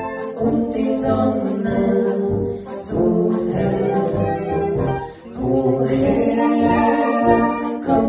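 Brass band playing a Bohemian-style polka, sustained chords over a regular pulsing bass, with voices singing the lyrics. The music dips briefly about five seconds in.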